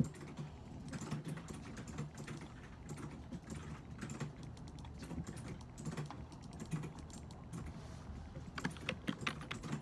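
Typing on a computer keyboard: irregular key clicks with a quick flurry near the end, over a steady low hum.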